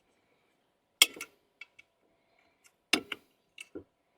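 Light knocks and clinks of a beer can being handled, in two short clusters about two seconds apart, then a few fainter taps.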